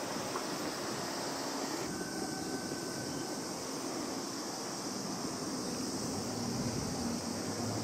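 Steady outdoor noise of distant town traffic, a rushing hum with no distinct events. A faint brief tone sounds about two seconds in, and a low hum grows near the end.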